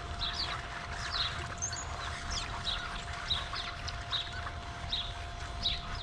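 A large flock of birds at feeders and on the ground, chattering, with short high calls that fall in pitch repeated every half second to a second, over a steady faint hum and a low rumble.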